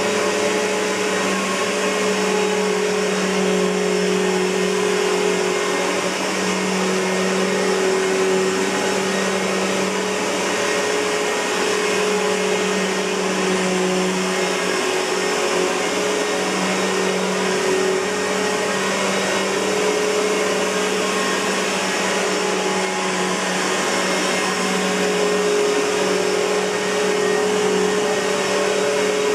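Simplicity Symmetry upright vacuum cleaner running steadily, its motor giving a constant whirring hum with a steady low tone and does not change speed.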